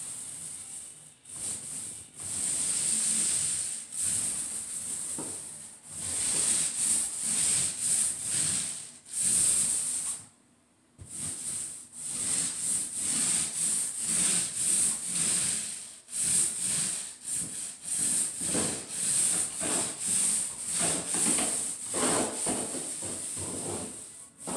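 Paint roller on an extension pole rolling wet paint onto a wall: a repeated hissing rub, about two strokes a second, with a short break about ten seconds in.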